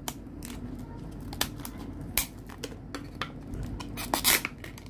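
Scissors snipping through a stiff clear plastic blister pack, a string of sharp snips and plastic crackles, the loudest cluster about four seconds in.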